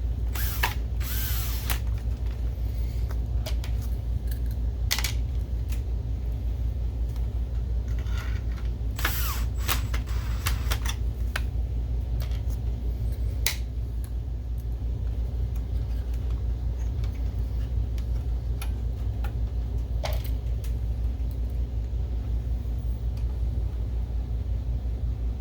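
Electric screwdriver driving screws in about six short bursts, the longest about a second and a half, over a steady low hum.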